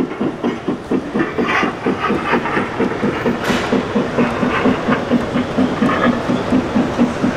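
Large-scale model steam train running past, with a steady rhythmic beat of about five pulses a second and a sharp click about three and a half seconds in.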